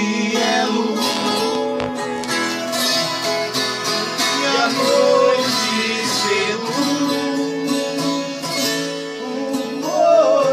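Viola caipira and nylon-string acoustic guitar playing together, plucked and strummed, in a Brazilian moda de viola with male voices singing.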